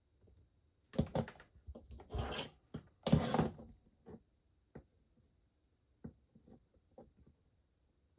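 Handling noises on a soldering workbench: a quick cluster of knocks and clicks with two short rustling scrapes, the loudest about three seconds in, then a few light scattered taps.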